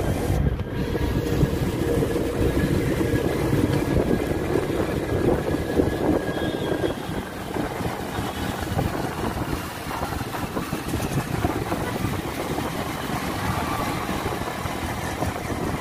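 City road traffic: a steady rumble of passing motor vehicles, among them auto-rickshaws.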